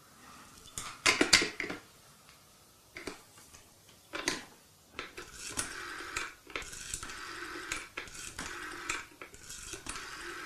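Telephone handset clicks, then a rotary dial being turned and whirring back several times in short runs as a number is dialled.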